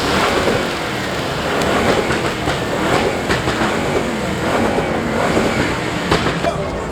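Car engine revving over a dense, steady rushing noise, with a few sharp cracks.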